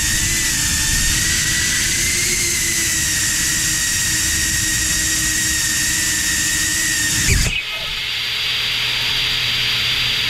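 Cinewhoop FPV drone's motors and ducted propellers whining steadily, the pitch wavering slightly; about seven seconds in they spool down and stop abruptly as the drone is disarmed, leaving a steady hiss.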